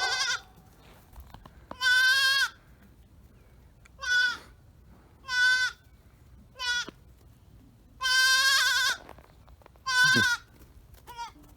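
Goat kid bleating over and over in short, high-pitched calls, about seven or eight in a row: a baby goat crying for its mother, who has walked off to eat.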